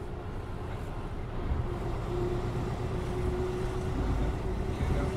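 Mercedes-Benz O407 city bus under way, heard from inside: diesel engine running with a heavy low rumble that grows louder about a second and a half in, as a steady whine joins it.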